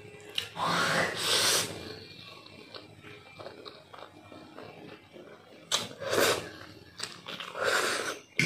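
A person slurping spicy instant noodles: several loud, breathy slurps, about a second in, then twice near the end, with quieter chewing in between.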